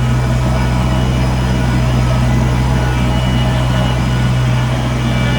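An engine idling steadily, a constant low drone with no change in speed.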